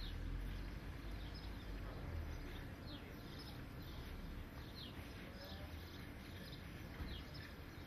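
A small bird calling with short, high, falling chirps, repeated every second or so, over a steady low rumble.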